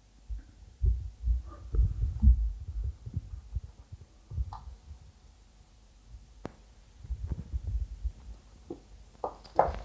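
A cat rolling on a wood-effect floor and batting a small toy: soft dull thumps and rubbing in two clusters, with one sharp click a little past the middle.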